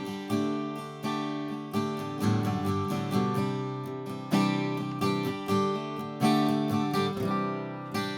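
Atkin L36 acoustic guitar (Sitka spruce top, mahogany back and sides) strummed with a pick, chords struck about once a second and left to ring; a loud, full strum.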